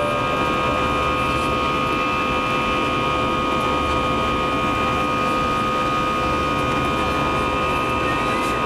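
Airbus A321 jet engines and rushing air heard from inside the passenger cabin during the climb after takeoff. A steady noise with several steady high whining tones held over it.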